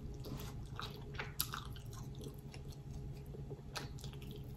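Close-up chewing of a lettuce-wrapped cheeseburger: soft wet mouth sounds with scattered short, sharp clicks, over a steady low hum.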